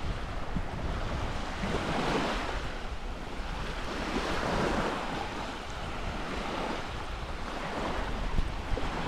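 Small waves washing onto a sandy beach in swells, with wind rumbling on the microphone.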